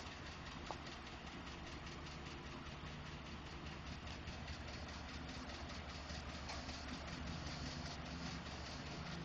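2012 Ford F-150's 5.0L V8 engine idling steadily with a rapid, light ticking running over it. This is the ticking or knocking that Ford has diagnosed as normal.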